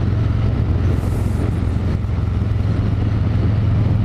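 2023 Harley-Davidson Fat Boy's V-twin engine running steadily through an aftermarket Chrome Werks exhaust, a deep, even exhaust note.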